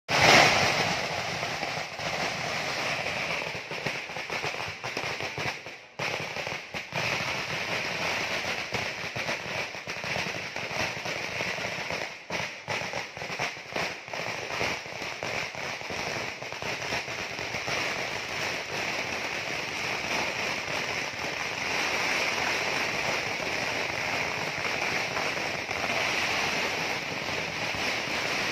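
Fireworks display: a dense, continuous crackle of firecrackers going off in rapid succession, loudest in a burst at the very start and dipping briefly about six seconds in.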